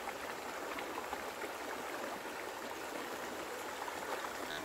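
Shallow river running over a stony riffle: a steady rush of water flowing around rocks.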